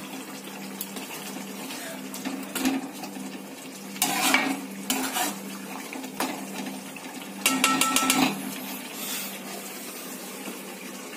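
Metal ladle stirring and scraping thick chicken korma gravy in a metal kadhai, with louder metal-on-metal clatters about four seconds in and again around seven and a half seconds. A low steady hum runs underneath.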